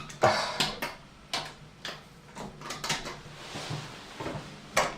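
Sharp clicks at irregular intervals, around a dozen, from lift control buttons being pressed over and over. The car does not respond: that floor needs a staff access key.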